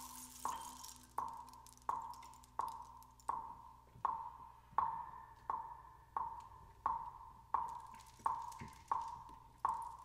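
Temple block struck with a mallet in a steady, evenly spaced beat, a little under one and a half strikes a second, each stroke a short pitched wooden knock that rings briefly.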